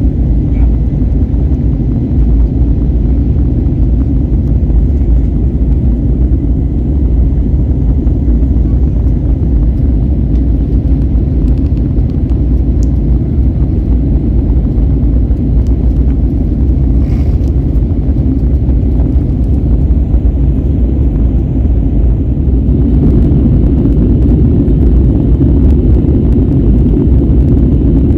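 Steady low roar of an Airbus A321neo's engines and rushing air, heard from inside the passenger cabin during the climb after takeoff. It grows a little louder about two-thirds of the way through.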